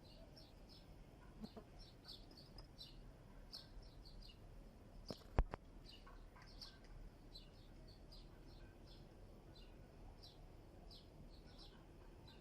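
Birds chirping in quick, repeated short calls, with a single sharp click about five seconds in.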